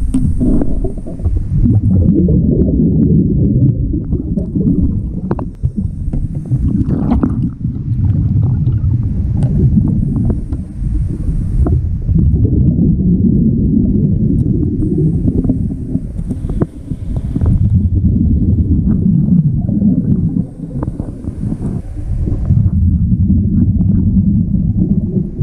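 Scuba diver breathing through a regulator underwater. Each breath is a short hiss followed by a long, low bubbling rumble of exhaled air, repeating every four to five seconds. Scattered light clicks and knocks come from metal hardware being handled on the outdrive.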